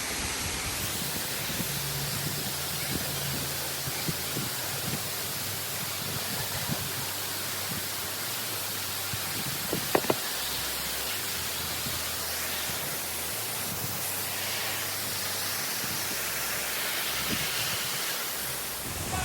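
Steady rushing of water, an even hiss, with two sharp clicks close together about halfway through.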